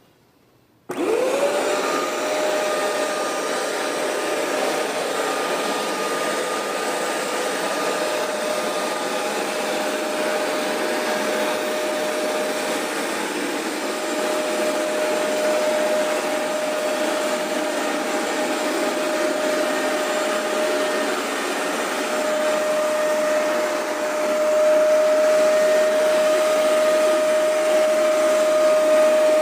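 Hoover Max Extract 77 carpet deep cleaner switched on about a second in, its suction motor spinning up with a rising whine and then running steadily with a whooshing airflow as it cleans carpet. It grows louder for the last few seconds.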